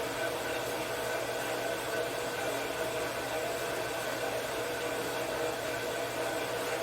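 Steady machine whir with a constant hum, running evenly without a break.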